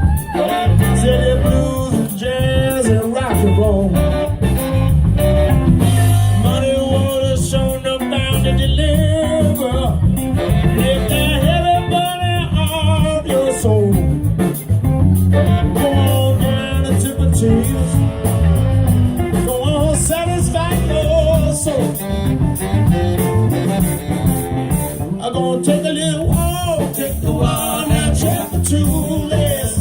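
Live blues band playing, with a guitar and a wavering melody line over a steady bass and drum groove.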